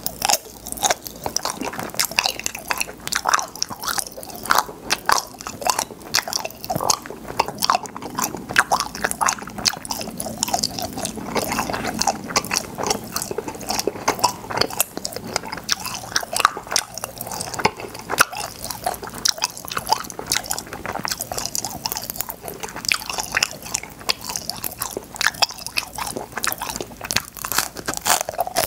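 Close-miked mouth sounds of chewing and crunching cloud popping cotton candy, with a dense run of quick crackles and clicks all the way through.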